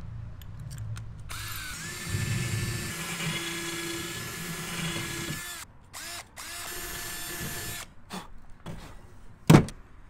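Cordless drill running into a wooden batten: one long run of about four seconds whose whine climbs as it starts, then two short blips and a second run of just over a second. A single loud thump comes near the end.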